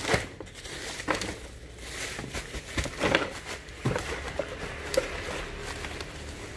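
Plastic bags of spare parts and bubble wrap rustling and crinkling as they are handled in a cardboard box, with a few scattered light knocks.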